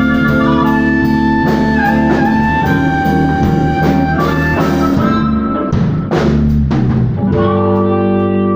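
Blues band playing an instrumental passage between sung verses: held electric guitar notes over a drum kit, with a busier run of drum hits about six seconds in.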